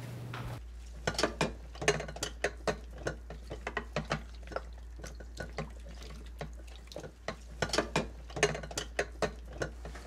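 Dishes being hand-washed in a soapy sink: crockery and utensils clinking and knocking in an irregular run of sharp clicks, several a second, with some splashing of water, over a low steady hum.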